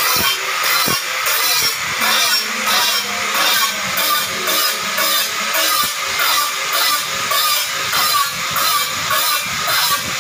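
Handheld angle grinder grinding the edge of a thick glass sheet: a loud, high, gritty whine that swells and fades in a steady rhythm, about every two-thirds of a second, as the tool is worked along the edge.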